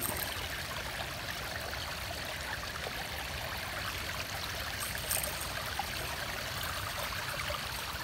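River water flowing steadily, a constant even rush.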